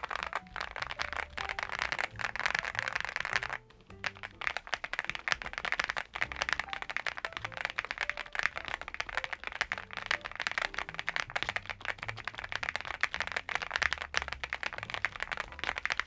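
Fast continuous typing on a NuPhy Gem80 mechanical keyboard with a POM plate on silicone socket mounts and PBT double-shot keycaps: a dense clatter of keystrokes, with a short break a little over three seconds in.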